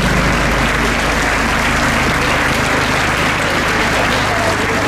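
An audience applauding: steady, dense clapping.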